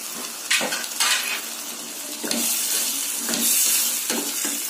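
Chicken pieces coated in chilli and coriander powder sizzling in hot oil in a steel pot, while a steel ladle stirs them with repeated scrapes against the pan.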